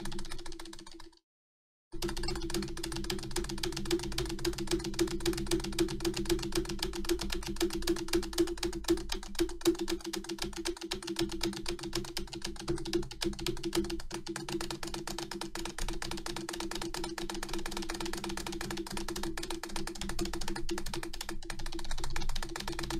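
Rapid, continuous clicking of an Acer computer keyboard's keys, about six or seven presses a second, over steady background music. The sound cuts out completely for a moment about a second in.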